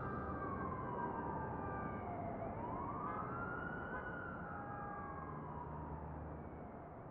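A siren wailing in a slow rise and fall: its pitch slides down, climbs again about three seconds in, then slowly falls away.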